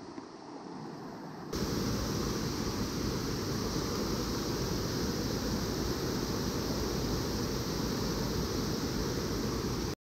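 Shallow mountain stream rushing over rocks, a steady rush of water that jumps suddenly louder about a second and a half in.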